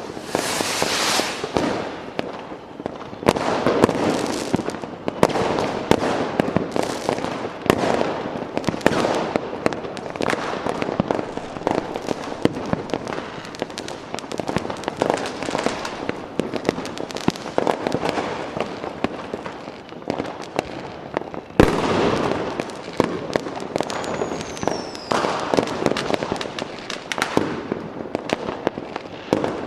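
A continuous fireworks barrage of overlapping bangs and crackling. One especially sharp, loud bang comes about two-thirds of the way in, followed a couple of seconds later by a short whistle falling in pitch.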